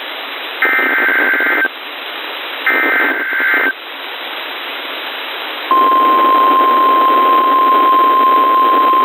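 NOAA Weather Radio Emergency Alert System (SAME) header: two screeching data bursts about a second long, two seconds apart, over radio hiss. About six seconds in, the steady 1050 Hz weather-radio warning alarm tone starts and holds, signalling that a warning is about to be read.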